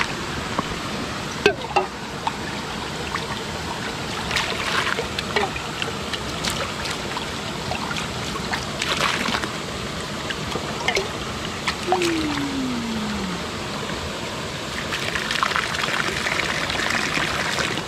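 Waterfall and stream splashing steadily, with a few scattered small clicks and knocks and one short falling tone about twelve seconds in.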